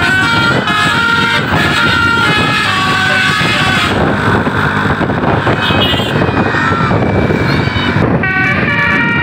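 Bus telolet basuri musical air horn playing a melody of short stepped notes, loud. After about four seconds the horn tune gives way to a loud rushing noise, and the melody starts again near the end.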